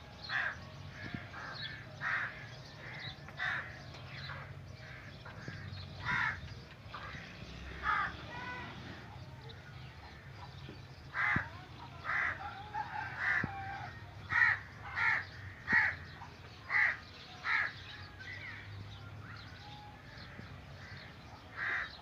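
Crows cawing again and again, a string of short calls that come thickest about halfway through.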